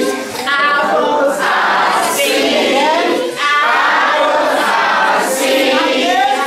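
A large group of children singing loudly together in chorus, many voices at once.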